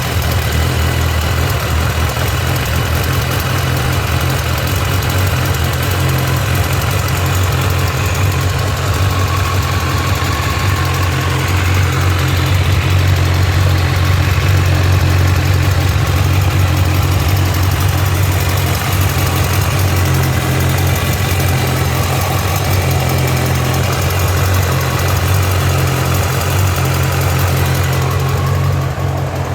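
Honda CB1000R motorcycle's inline-four engine idling steadily, with no revving.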